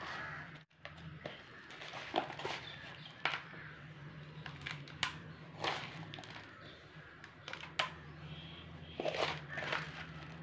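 Dry, crumbly potting soil crunching and rustling in scattered short bursts as it is added to and handled in a coconut-shell pot, over a steady low hum.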